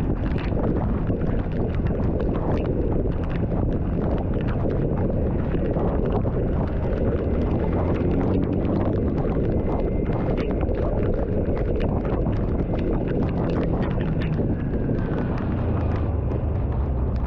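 Steady rumble of a vehicle travelling along a road in rain, with wind noise and a constant scatter of small ticks from raindrops.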